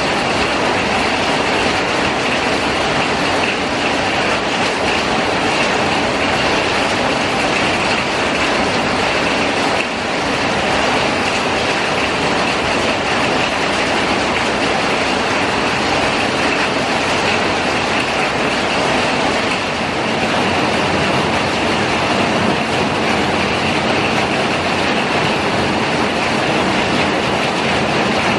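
Steady rain falling on garden foliage and paving, an even, unbroken wash of sound.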